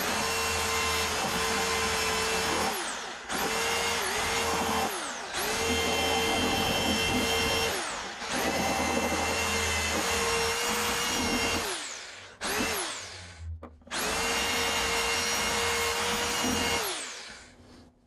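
Handheld electric drill widening a hole in a wooden speaker cabinet, run in about seven bursts of a few seconds each. Each burst ends with the motor pitch falling as the trigger is released and the chuck spins down.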